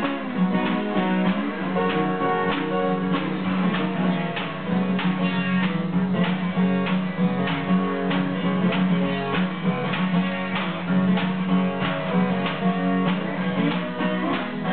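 Acoustic guitars, one of them a Martin 0000-28, playing an up-tempo blues instrumental. A slide lead rides over a steady strummed rhythm.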